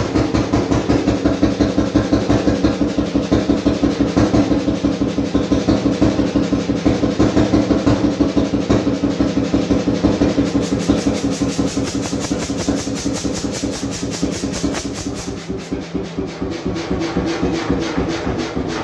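1928 Beijer 13 hp single-cylinder hot-bulb oil engine running, with an even, rapid beat of several firings a second.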